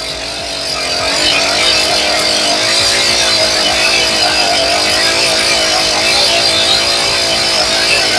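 Holzfforma G288 90cc-class two-stroke chainsaw running at full throttle while cutting through a hardwood log, its note climbing about a second in and then holding steady with a slight waver. The saw is still untuned and running rich, which the owner says makes it sound terrible.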